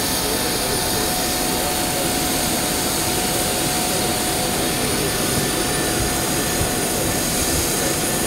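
Steady jet aircraft noise: an even rush with a constant high whine running through it.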